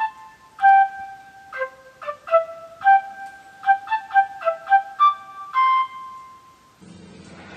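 Solo flute playing a short melody of separate single notes, which ends about six seconds in. A faint low hum follows near the end.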